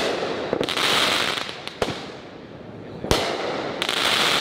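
Aerial fireworks going off: a few sharp bangs about a second apart, with stretches of crackling hiss from bursting, sparkling shells in between.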